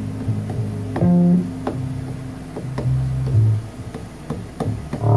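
Short sampled sounds played one at a time on a Maschine sampler: separate low bass-like and plucked guitar-like notes, each lasting under a second, with sharp clicks in between.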